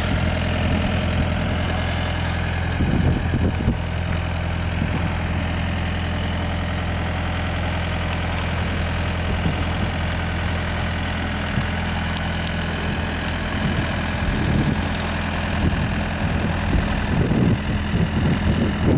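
Hyundai R555W-7 wheeled excavator's diesel engine running steadily, with a few short clattering noises about three seconds in and again near the end.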